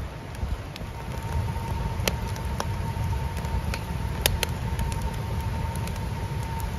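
Wood fire burning in a perforated steel burn barrel: a low steady rumble with scattered sharp crackles and pops, the loudest pop a little past four seconds in. A faint thin whistle holds steady from about a second in.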